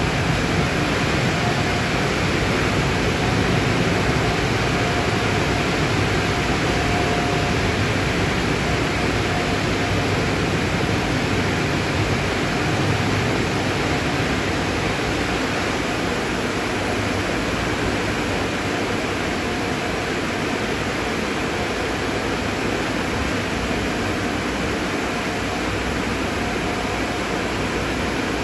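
Car wash equipment running: a steady, even rushing noise with no breaks.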